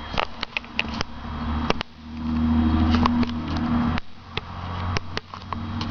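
Car engine idling, heard inside the cabin as a steady low hum that grows louder about two seconds in. Sharp clicks and knocks come and go over it as the headrest camera mount is moved.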